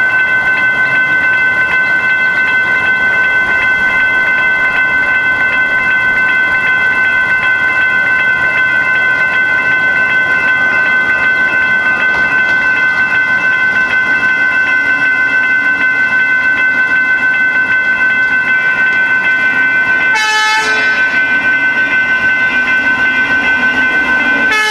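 Railroad grade crossing warning bell ringing continuously while the signals are active. A low rumble builds in the second half, and there is a short horn toot about twenty seconds in.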